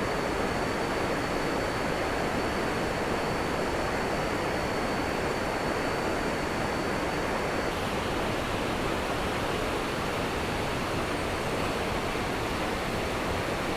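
Mae Klang cascades in flood: a steady, heavy rush of water pouring over the rocks.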